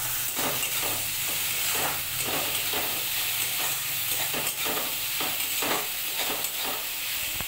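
Onion-tomato masala sizzling in oil in a metal kadai while a spatula stirs and scrapes the pan in quick, regular strokes. The masala is at the frying stage where the oil has separated.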